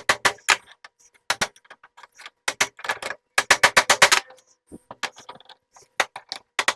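Quick runs of sharp clicks from hand tools working a stuck bearing out of a cast-iron mower blade spindle, with short pauses between the runs.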